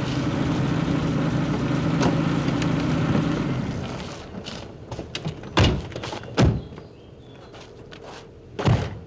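A steady low hum dies away over the first four seconds. Then the doors of a BMW E30 saloon shut with three heavy thunks, two about a second apart and a third near the end, with light clicks and steps between them.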